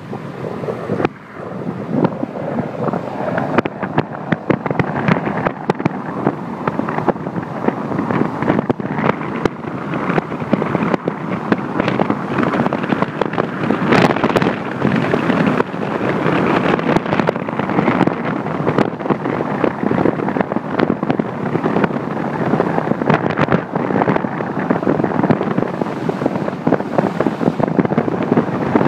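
Wind buffeting a phone microphone held outside a moving car, over tyre and road noise, with a sharp knock about halfway through.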